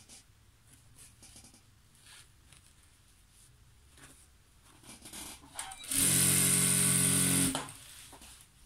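Faint rustling of fabric being handled, then about six seconds in a single-needle industrial sewing machine runs fast and steady for about a second and a half and stops abruptly.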